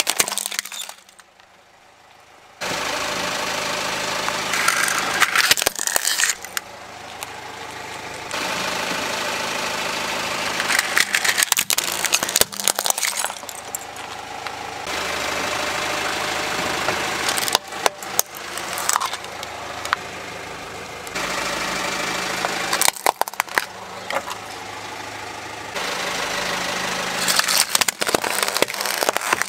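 A car engine idling while its tyre rolls over plastic toys, cracking and crunching them in several short clusters of snaps.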